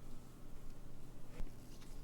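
A single sharp click of a small metal tool against a clock part about one and a half seconds in, with a few faint light ticks near the end, over a low steady hum.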